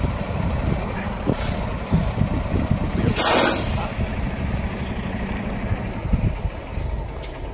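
Semi truck's diesel engine rumbling as the tractor pulls out, with a loud hiss of air brakes lasting under a second about three seconds in.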